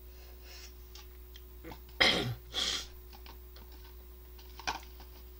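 A man drinking rice-noodle soup broth straight from the bowl: faint sipping, then a loud short breathy sound about two seconds in and a sharper exhale just after it, with a few light clicks around them.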